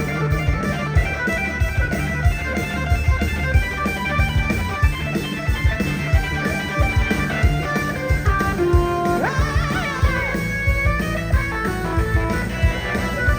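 Live rock band playing an instrumental passage, electric guitar to the fore over bass and a steady drum beat.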